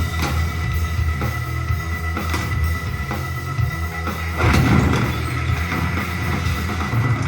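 Music with a drum kit and deep, heavy bass, with a louder noisy swell about four and a half seconds in.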